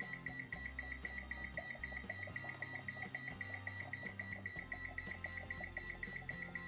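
Rapid, steady high-pitched beeping from a multimeter while the electrolysis cell draws about 15.8 A, several even beeps a second. This is typical of a meter's warning beep when measuring current above its 10 A range.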